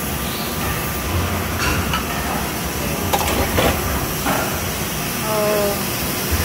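Steady hum and hiss of injection-moulding machinery, with a handful of sharp knocks and clacks from about a second and a half in to past the middle.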